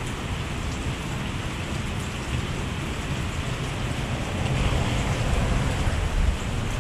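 Heavy thunderstorm rain falling steadily, with scattered drops ticking close by. A low rumble swells about four and a half seconds in.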